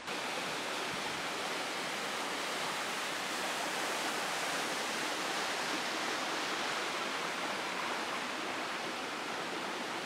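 Steady rushing of a small mountain stream, water running over a muddy trail and through stones and sticks.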